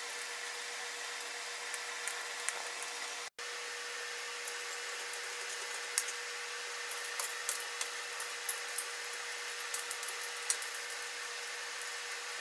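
A small electric forge blower runs with a steady whine. From about six seconds in, light clinks and taps come through as coal and steel tools are handled on the steel forge table.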